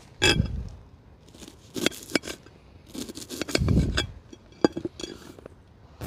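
Camp cooking gear being handled: scattered clinks, knocks and scrapes of pans and utensils, with two louder low thuds, one just after the start and one around three and a half seconds in.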